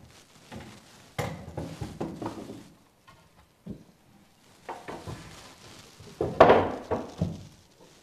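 A loose wooden board knocking and scraping against a timber post and the wooden stair as it is worked into a gap. The knocks come irregularly, with the loudest about six and a half seconds in.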